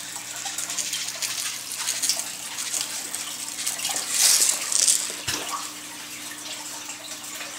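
Aquarium water running and splashing, with a steady low hum underneath. The water noise grows louder in two surges about four to five seconds in.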